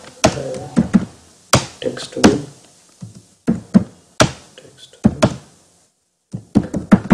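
Computer keyboard being typed on close to the microphone: irregular, loud key clicks and thunks, with a brief pause about six seconds in.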